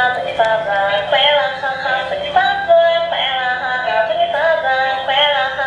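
Dancing cactus toy playing its song through its small built-in speaker: a synthetic singing voice, thin and tinny with no bass.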